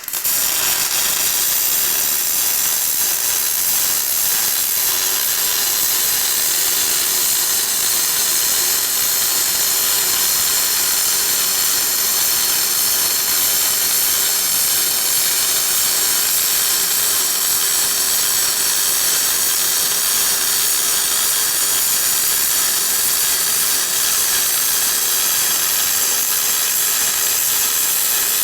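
MIG welding arc from a spool gun on a PRO-TEC 215MP welder, a steady, even hiss that strikes up suddenly at the start and holds without a break.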